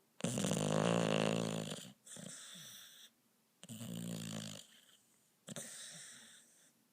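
Snoring: two loud, pitched snores, each followed by a quieter, breathier one.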